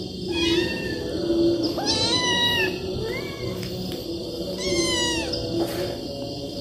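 Kittens meowing: four high-pitched mews, each rising and then falling in pitch, about a second and a half apart.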